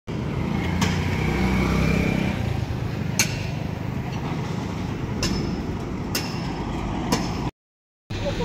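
Roadside traffic ambience: a steady low rumble of vehicle engines, with five sharp clicks or taps spread through it.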